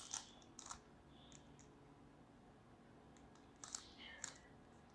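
Faint plastic clicks of a 3x3 Rubik's cube's layers being turned, coming in a few short groups: at the start, just under a second in, and again near the end.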